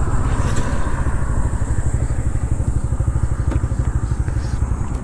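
Small single-cylinder 125 cc motorcycle engine running at low revs close to the microphone, with a steady, rapid beat.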